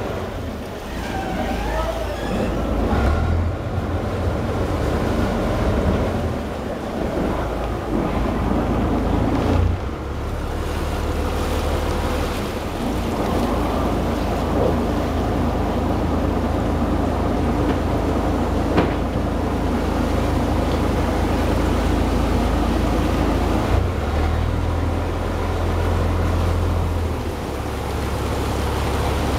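A boat's engine running steadily with a constant low drone, mixed with water and wind noise.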